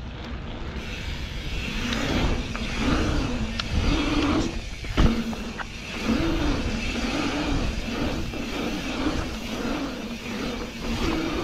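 Knobby mountain-bike tyres humming on pump-track asphalt, the hum rising and falling in pitch over and over as the bike speeds up and slows through the rollers. Wind rumbles on the microphone, and a sharp knock comes about five seconds in.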